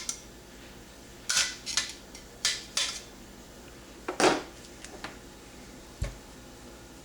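Light metallic clinks and taps as a brass cleaning rod and rifle parts are handled against the magazine tube of a Marlin 336, several irregular strikes with the loudest about four seconds in and a dull knock near six seconds in.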